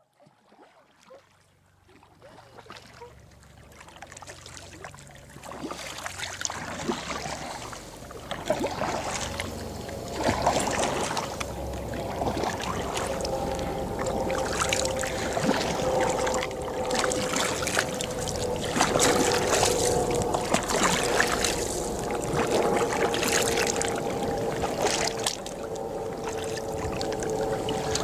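Kayak paddle strokes splashing and dripping on calm water. They start faint and grow louder over the first ten seconds, then carry on irregularly over a steady drone.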